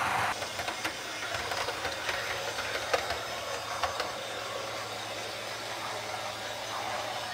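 OO gauge model train (Heljan class 128 parcels railcar) running along the layout track: a low steady motor hum with scattered clicks of the wheels over rail joints, a few sharper clicks around three to four seconds in. A louder running sound from another passing model train is cut off just after the start.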